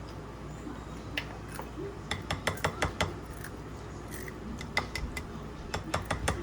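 Kitchen utensils and dishes clinking and clattering: a series of sharp clicks in two clusters, about two to three seconds in and again near the end.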